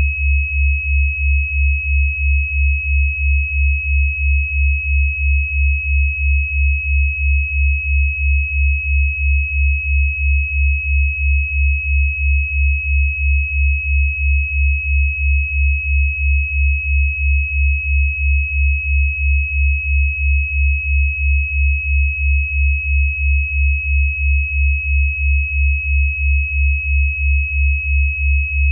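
Synthesized healing-frequency tones: a steady high-pitched pure tone over a deep low hum that pulses about twice a second, unchanging throughout.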